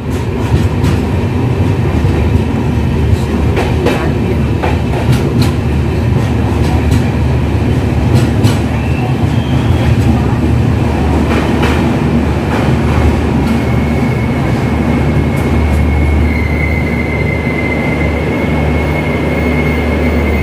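Shatabdi Express passenger coach rolling into a station, heard from inside the coach: steady rumble with scattered clicks from the wheels over the rails. About two-thirds of the way in, a thin, steady high squeal sets in as the train slows to a stop, over a low hum.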